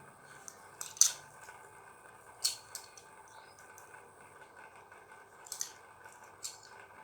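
A few sharp clicks or taps, the loudest about a second in and three more spread through the rest, over a faint steady background hum.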